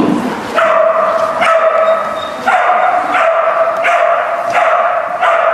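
A dog barking over and over in high-pitched, drawn-out yelps, about seven in a row at a steady pace.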